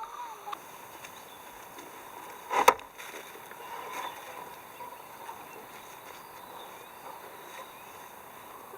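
A single sharp knock about two and a half seconds in, over a faint steady background.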